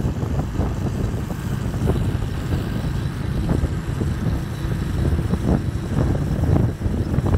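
Wind buffeting the microphone over a steady low rumble from a moving vehicle.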